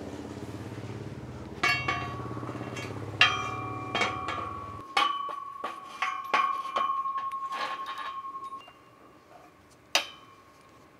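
A galvanized steel pull-up bar knocking and clinking against the steel uprights of a half rack as it is fitted into place: a string of sharp metallic knocks, one of them leaving a clear ringing tone that hangs for about five seconds, and a last knock near the end. A low steady hum runs underneath for the first half and cuts off suddenly.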